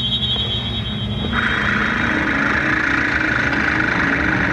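Sustained synthesizer score: held chords over a low drone, with a high note giving way about a second in to a brighter, fuller chord.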